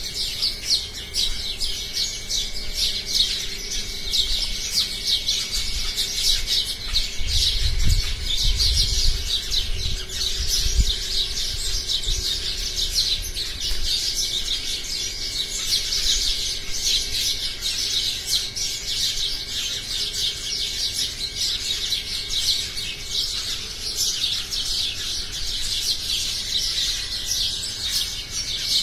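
A flock of house sparrows chirping together in a roost tree, a dense, unbroken chorus of many overlapping chirps. This is the communal chirping of sparrows settling in to roost for the evening. A low rumble comes in under it between about eight and eleven seconds in.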